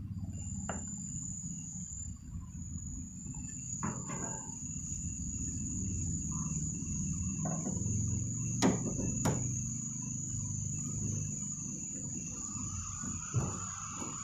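A steady high-pitched whine like an insect's runs under a low rumble, with a few scattered clicks and knocks from hand work inside an opened car door. Two sharper knocks land about a second apart a little past halfway.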